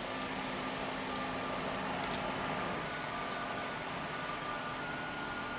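Mercedes-Benz SL600 V12 idling while it warms up: a quiet, steady hum with faint whining tones over it, one low tone dropping out about two and a half seconds in.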